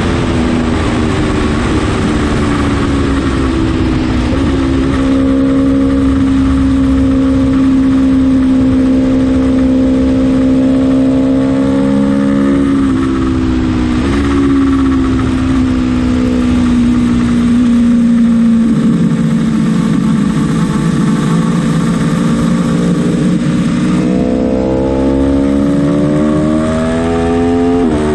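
Aprilia Tuono motorcycle engine running hard at speed, heard on board. The revs sag slowly, hold steady, drop in two quick steps around the middle, sag further, then climb steeply over the last few seconds to a gear change near the end, over a steady rush of noise.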